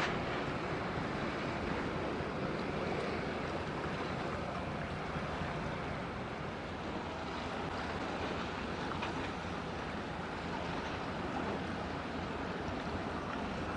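Steady low rumble of a passing container ship over the wash of waves, with wind buffeting the microphone.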